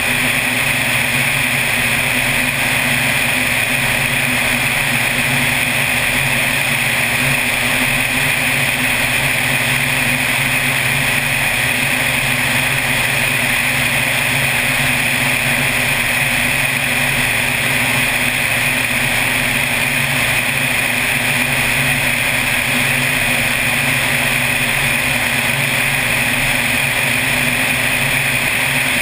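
Floatplane engine and propeller droning steadily in cruise, with airflow rushing past an outside-mounted camera.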